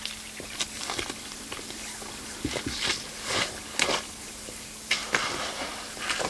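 Footsteps crunching on an icy, gravel-strewn dirt road: a slow, uneven series of crunching steps on ice and loose stones.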